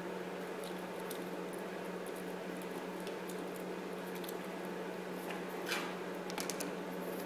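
Small clicks of an electrical plug being handled, then near the end a short scrape and a few sharp clicks as a screwdriver tip is set to the plug's terminal screw. A steady low hum and hiss underlie it.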